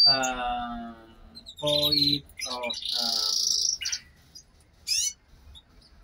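Fiorino frill canaries chirping and singing in their cages, with a short bright trill about halfway through and a quick rising chirp near the end. A man's hesitant, wordless voice sounds over the first few seconds.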